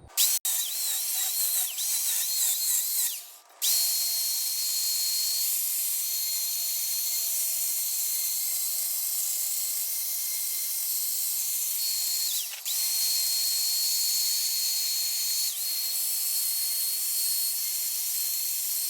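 Worx electric chainsaw running and cutting wood, a high motor whine that wavers and sags as the chain bites. It stops briefly about three seconds in, then runs steadily with two short dips later.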